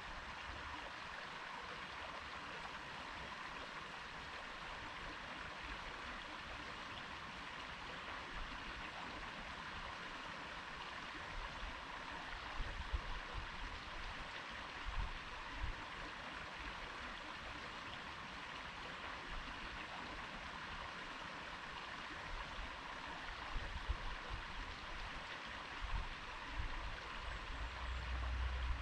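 River water flowing and babbling in a steady rush, with a few brief low rumbles partway through and near the end.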